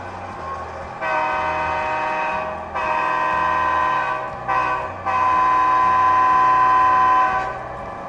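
A Tsunami2 sound decoder in an HO scale F3 model diesel locomotive sounding its air horn through the small onboard speaker: the grade-crossing pattern of two long blasts, a short one, and a final long one.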